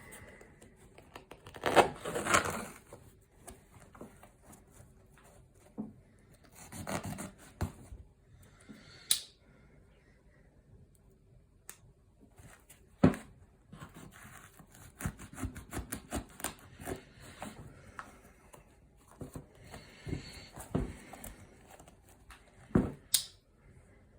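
Pocket knife blade cutting and sawing through an old shoe's material, in irregular bursts of tearing and scraping with sharp clicks and knocks between them.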